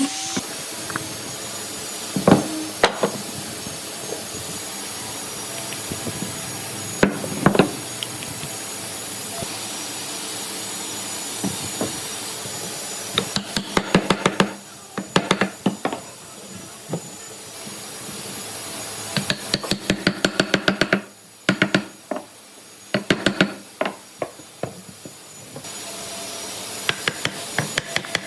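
Workshop tool work: a steady hiss with a few separate knocks, then from about halfway on several quick runs of sharp taps on wood.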